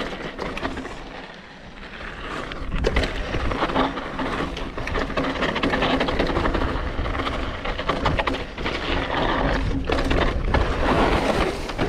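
Hardtail mountain bike riding down a loose dirt trail: tyres crunching over dirt and small stones, and the bike rattling with many quick clicks and knocks. Quieter about a second in, then louder and busier from about three seconds on.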